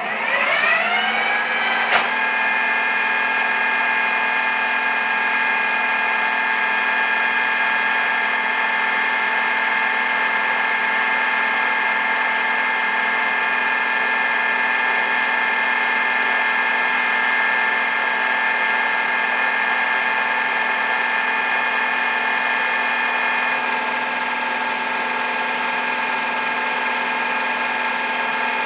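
Geared-head Vernier milling machine spindle spinning up, its gear whine rising in pitch for about two seconds and then running steadily at about 1200 RPM, with a sharp click as it reaches speed. Late on a few of the higher whining tones drop out and it runs a little quieter.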